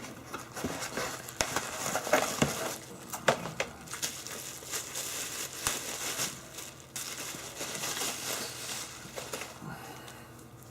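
Packaging crinkling and rustling as a mail-order box is opened and its contents handled, with scattered small clicks and knocks.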